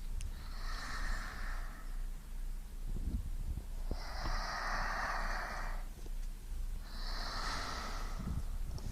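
Slow breathing close to the microphone: three breaths a few seconds apart, the middle one the longest.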